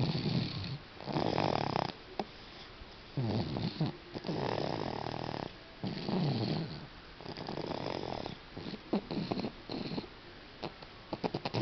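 A six-month-old baby snoring in sleep: a steady run of snoring breaths, about one a second, with a few crackling clicks in the breaths near the end.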